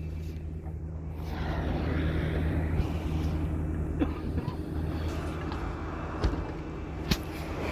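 A bus engine running with a steady low hum, heard from on board, with road and cabin noise rising and falling and a few sharp clicks or knocks, the clearest near the end.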